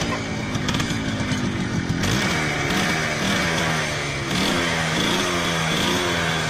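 Small motorcycle engine running and being revved up and down several times on the throttle.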